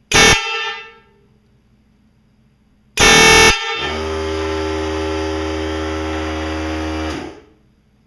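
A pair of Wolo Longhorns trumpet air horns blown with shop compressed air at about 90 psi from a blow gun: a short blast, then a long steady blast of about four seconds, painfully loud, with the start of each blast overloading the recording.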